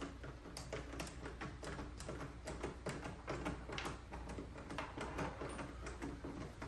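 Scattered light clicks and taps of a 5/16 driver working a fastener out of a car's airbox housing lid, a few to each second, over a low steady hum.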